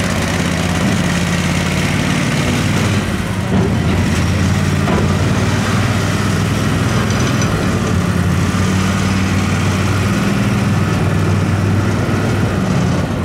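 Diesel engine of an Ant rail car mover (shunting tractor) running steadily as the machine drives back onto the traverser after uncoupling from the railcar.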